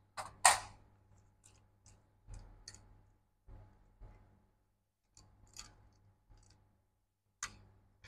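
Scattered small clicks and taps of a screwdriver and parts as a MacBook Pro's logic board is worked loose and lifted out of its aluminium case, about a dozen in all, the loudest about half a second in, over a faint low hum.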